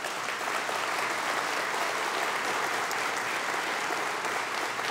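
Audience applauding, a steady clapping of many hands.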